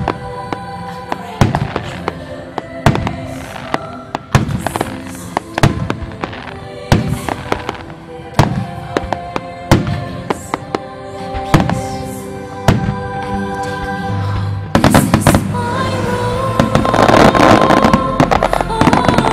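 Fireworks shells exploding about every second and a half over a musical accompaniment with sustained notes. From about three-quarters of the way in, a starmine volley sets off a dense rapid string of bangs and crackling that is louder than the single shells.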